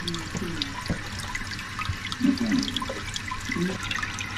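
Toilet running: water hissing and trickling in the tank and bowl as the fill valve keeps feeding it, a sign of a flapper that is not sealing.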